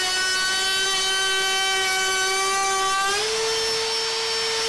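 Ryobi 18V cordless trim router with a quarter-inch cove bit cutting along the edge of a board: a steady high-pitched whine, held slightly lower under the load of the cut. About three seconds in the bit leaves the wood and the pitch steps up as the motor spins free.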